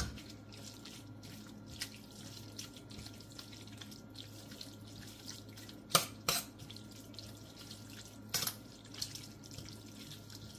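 A metal spoon stirring wet collard greens into cabbage in a stainless steel pan, with soft wet stirring sounds and sharp clinks of the spoon on the pan: once at the start, twice about six seconds in, and once about eight seconds in. A low steady hum sits underneath.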